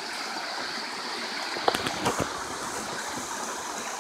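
Rocky forest stream running over small cascades, a steady rush of water. A few short knocks come about two seconds in.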